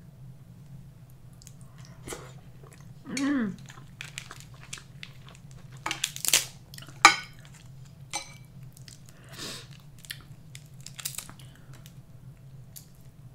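Dungeness crab shell cracking and snapping as the legs are broken open by hand, with the meat pulled out and chewed; the sharpest cracks come about six and seven seconds in.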